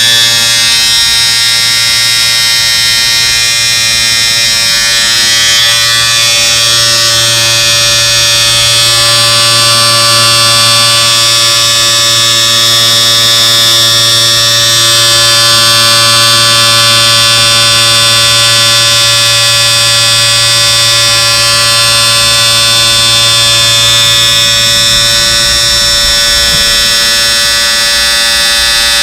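Electric shaver running continuously with a steady, even buzz.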